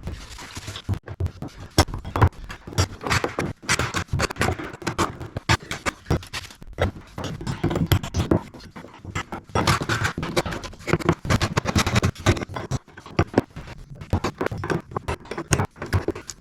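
Irregular scraping and knocking of hand work on a staircase: many short strikes and scrapes in quick, uneven succession.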